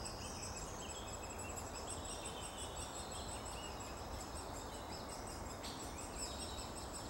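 Woodland birdsong: many short, high chirps and twitters from small birds over a steady hiss.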